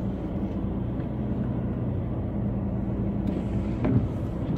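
Steady low hum of a car's engine heard from inside the cabin at low speed. About four seconds in, a windscreen wiper sweeps across the wet glass with a brief knock.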